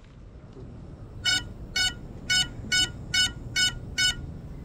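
Seven short electronic beeps at a steady pitch, evenly spaced a little under half a second apart, from a crashed FPV quadcopter's beeper after its motors have stopped.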